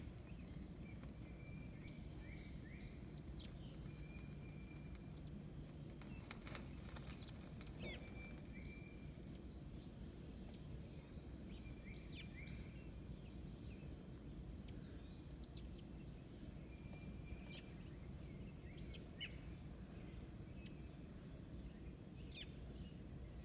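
American robin fledgling giving high, thin begging calls, each a short downward sweep, repeated every second or two. A steady low rumble of background noise runs underneath.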